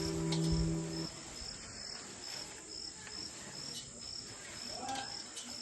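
Crickets chirping steadily: a continuous high trill with sharper chirps about twice a second. A plucked guitar chord rings for the first second, then stops.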